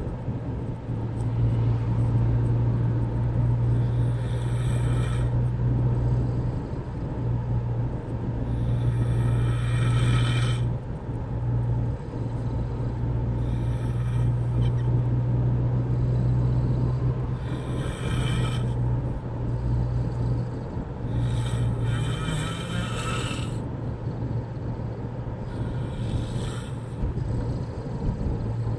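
A man snoring loudly, a rasping breath about every four seconds, over a steady low hum.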